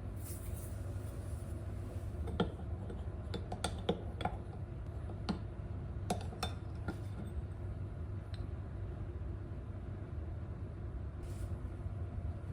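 Scattered light clinks and taps of kitchen dishes and utensils being handled, mostly in a cluster in the first half, over a steady low hum.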